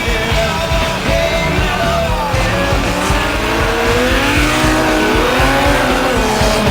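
Several Stock Omega race car engines running hard. They rise and fall in pitch as the cars accelerate and shift, from about two seconds in, over background music.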